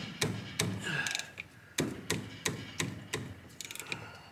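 Hand ratchet wrench clicking in an uneven series of sharp clicks as loosened brake caliper bolts are backed out.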